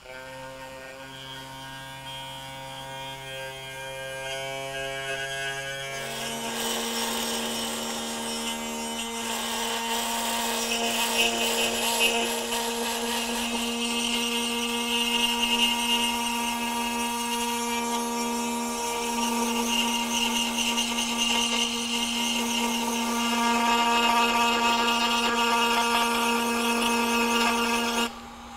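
Foredom flex-shaft rotary tool running with a small cutter, grinding a relief pocket into the inside of a knife handle scale for the liner lock bar. It starts with a low hum, and about six seconds in the motor speeds up and the bit bites in with a steady gritty grinding. Near the end it is switched off and the motor winds down.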